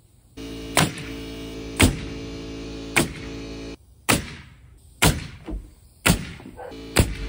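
Pneumatic framing nailer firing nails through 1/2-inch OSB sheathing into 2x4 wall framing: seven sharp shots, about one a second.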